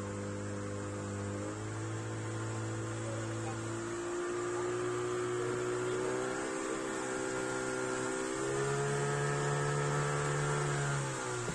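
Small boat's motor running at low speed, a steady hum that shifts slightly in pitch several times as the speed is changed and drops away near the end.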